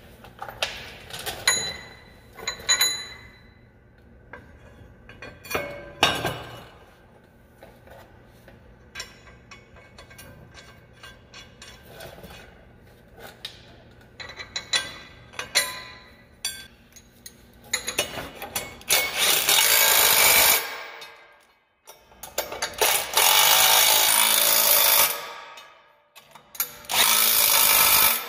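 Clinks and a little ringing of metal parts as a planter closing wheel and its bolt are handled. Then a cordless impact gun runs in three bursts of two to three seconds each, hammering the bolt tight.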